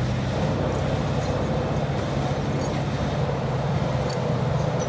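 Heavy machinery running: a steady low mechanical rumble and hum, likely a bucket wheel excavator at work.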